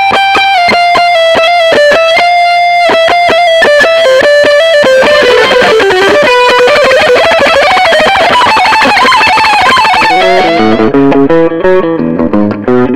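Distorted electric guitar playing a sustained single-note lead line with bends and vibrato. About ten seconds in it switches to a riff of short, choppy low notes.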